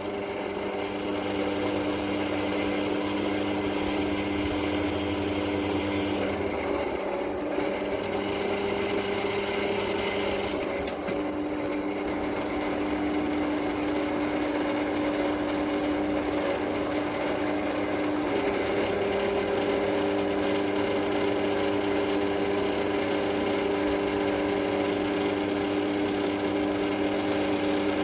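Drill press motor running steadily at low speed while drilling holes in railway-track steel: a continuous hum with fixed tones that shift slightly a few times.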